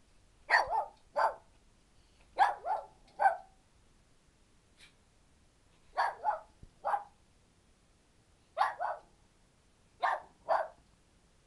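Small dogs barking in short bursts of two or three barks, a burst every couple of seconds.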